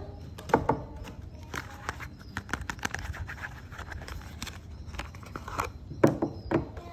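Scattered sharp clicks and crackles from soap bars and their packaging being handled and opened, with a quick run of them in the middle and a few louder ones near the end.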